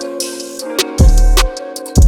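Background music with a steady beat: drum hits and heavy bass notes over sustained pitched tones.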